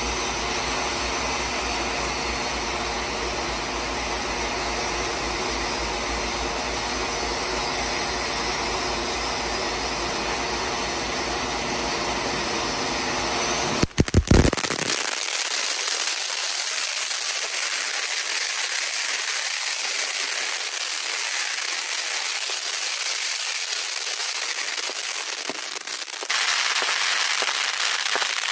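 Ground firework fountains spraying sparks: a steady dense hiss and crackle. About halfway through, a few sharp pops break in and the sound turns to a thinner, higher hiss, which gets louder again near the end.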